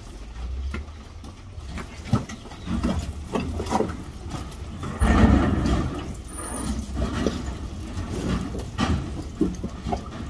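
Cattle being worked through a corral and livestock scale: irregular knocks and clanks of gates and hooves, loudest about halfway through.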